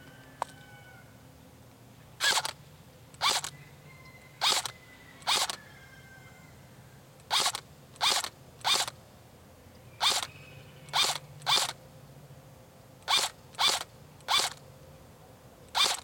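ICS-92 Galil airsoft electric rifle (AEG) firing single shots on semi-auto: about fourteen short, sharp shots at uneven intervals, each one trigger pull cycling the gearbox once.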